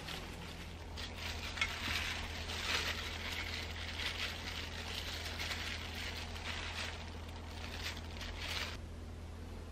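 Disposable plastic gloves crinkling and rustling as hands fold flat fish cake sheets and thread them onto wooden skewers; the crinkling stops about a second before the end. A low steady hum runs underneath.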